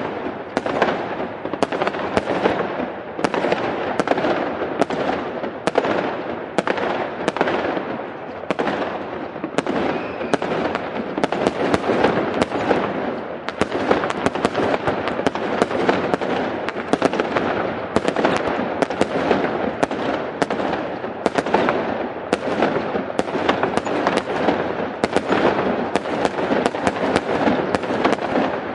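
Fireworks display: a dense, continuous barrage of bangs and crackles, several a second, with no pause.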